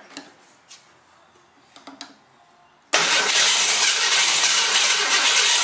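A few faint clicks. Then, about three seconds in, the freshly rebuilt V8 of a 1969 Mercury Cyclone comes in suddenly and runs loud and steady as a rushing noise that overloads the microphone.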